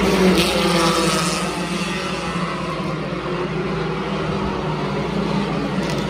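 Hornet-class four-cylinder race cars running on the oval, several engines heard together. The pitch falls as a car passes in about the first second.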